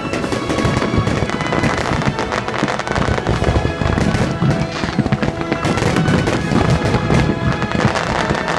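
Fireworks bursting and crackling in quick, irregular succession over loud music.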